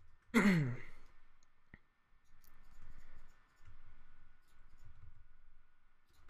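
Steady high whine of a desktop computer fan, with a brief falling voiced 'hmm' about half a second in and a sharp click a little later from the mouse and keyboard being worked.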